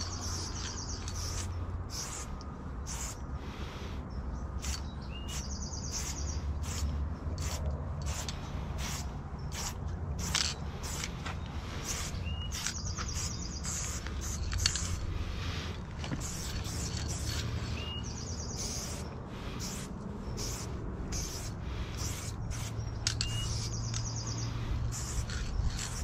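Spray paint can hissing in many short bursts. A bird repeats the same short high phrase about every six seconds, over a steady low rumble.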